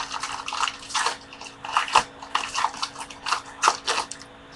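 Baseball card pack wrapper being torn open and crinkled by hand: an irregular run of crackles and rustles that stops shortly before the end.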